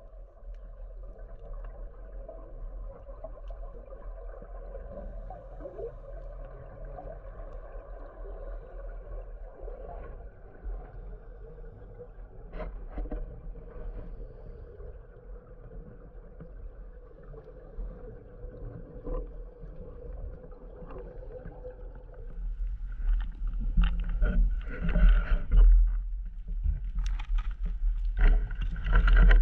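Underwater sound on a scuba dive: a steady hum with a low rumble throughout, then, from about three-quarters in, loud bubbling bursts of a diver's regulator exhaling.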